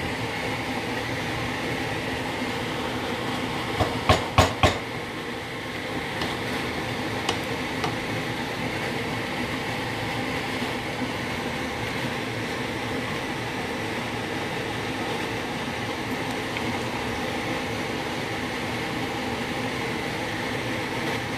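Ogbono soup boiling hard in a stainless steel pot, a steady bubbling hiss. Around four seconds in comes a quick run of sharp knocks of the stirring spoon against the pot, with a few fainter taps a little later.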